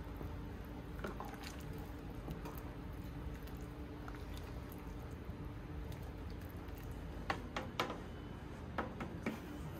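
Soup being stirred with a plastic spoon in a pot of pork sinigang broth with tomatoes and onions: soft squishing and sloshing. A few light clicks in the last three seconds, over a steady low hum.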